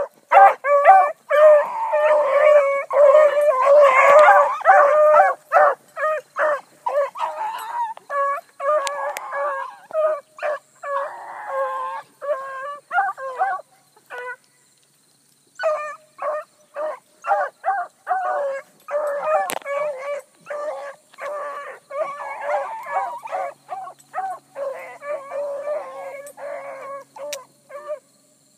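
Several bluetick coonhounds baying as they run a rabbit, a steady string of short, pitched bawls and barks, crowded and overlapping at first, with a short break about halfway. The baying is the hounds giving voice on the rabbit's trail as they drive it.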